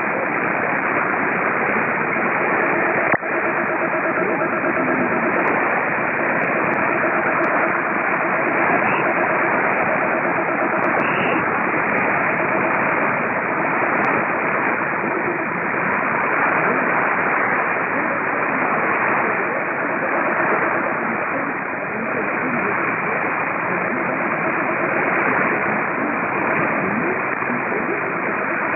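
Weak shortwave AM broadcast on 6115 kHz, tuned on a Perseus software-defined radio in synchronous AM mode: steady hiss and static with a faint voice barely coming through, the audio cut off above about 3 kHz. A single click about three seconds in.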